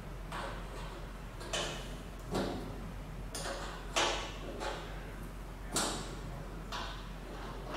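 Spanner working the nut of a coiled metal gas-hose fitting: about eight short metallic clicks and scrapes, a little under one a second, over a steady low hum.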